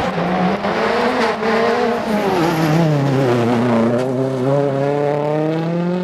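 Rally car engine at full effort: its pitch wavers, drops as the car slows into a corner, then climbs steadily in one long pull as it accelerates away.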